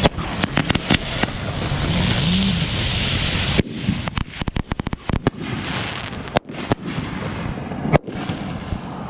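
Consumer fireworks going off: a dense hissing crackle for the first three seconds or so, which cuts off into a rapid string of sharp pops, followed by scattered single bangs.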